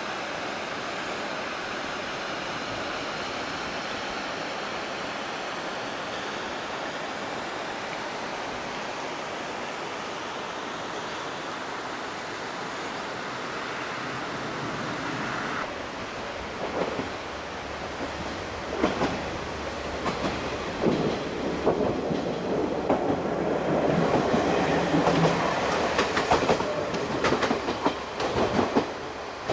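A JNR KiHa 40 diesel railcar drawing near. About halfway in, its wheels start clattering over the rail joints, with sharp clicks and a low engine hum, growing louder toward the end over a steady background rush.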